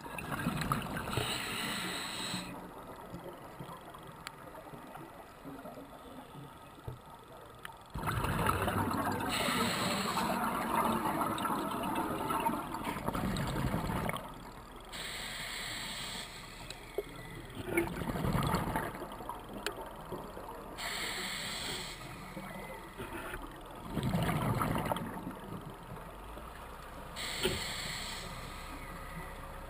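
Scuba diver breathing through a regulator, heard through a GoPro's underwater housing: a hiss on each inhale and a rush of bubbles on each exhale, about one breath every six seconds.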